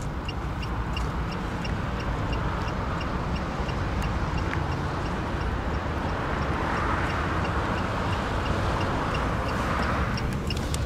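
The Datsun on-Do's warning chime beeping in a fast, steady series of short high beeps, over a steady low rumble and hiss that swells in the second half.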